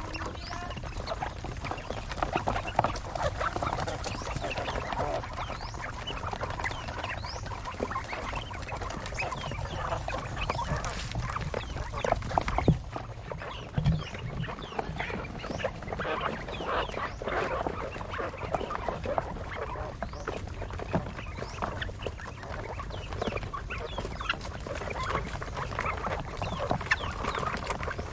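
A flock of quail chattering: many short, overlapping chirps and calls without pause, over a steady low hum.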